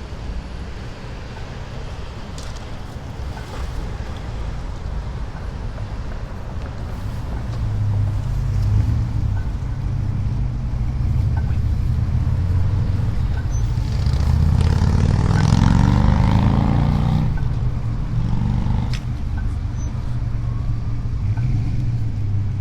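Motor vehicle engine and road noise: a steady low rumble that builds and is loudest a little past the middle, as a vehicle runs close by, then eases.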